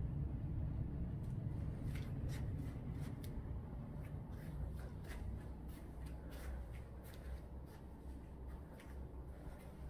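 Soft rustling and scattered light clicks from a hand-held camera phone as the person carrying it walks across carpet, over a steady low hum.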